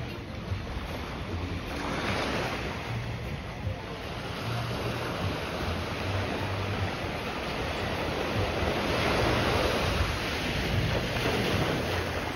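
Small sea waves washing onto the beach, with wind rumbling on the microphone; the wash swells louder about nine seconds in.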